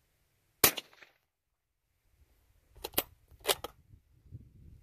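A single suppressed shot from a Remington 700 .308 bolt-action rifle fitted with a Saker 762 suppressor, a sharp crack with a short ringing tail about half a second in. About two seconds later comes a quick series of four or five metallic clicks as the bolt is worked to chamber the next round.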